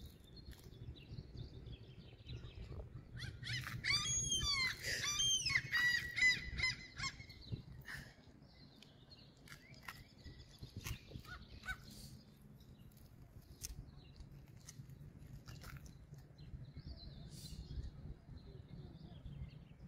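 Gulls calling: a quick run of high, arching cries a few seconds in, then only scattered faint calls over a low steady rumble.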